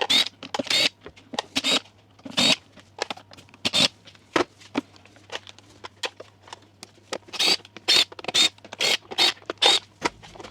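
Irregular sharp clicks, rattles and short squeaky scrapes of hand tools and plastic parts as a motorcycle's airbox lid and carburettors are taken off, over a faint steady low hum.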